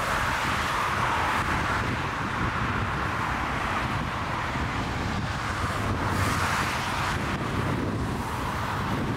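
An Airbus A380's four jet engines at high thrust as it lifts off and climbs away, a steady rushing jet noise that swells about six seconds in. Wind buffets the microphone underneath.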